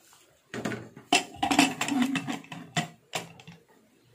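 Aluminium pressure cooker lid being fitted on and its handles brought together to lock it: a run of metal clanks and scrapes with several sharp knocks.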